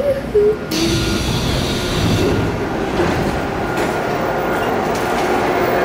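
Seoul Subway Line 5 car doors opening, a sudden rush of hiss about a second in after a few short tones, then the steady noise of the standing train.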